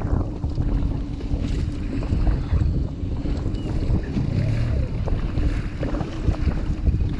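Small inflatable boat under way on choppy sea: an outboard motor runs steadily under heavy wind noise on the microphone, with water splashing against the hull now and then.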